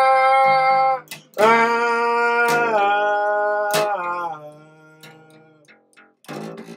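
A man's voice holding a long wordless sung note, then a second note that steps down in pitch, over a fingerpicked Fender acoustic bass guitar. From about halfway through only a few plucked bass notes ring out and fade.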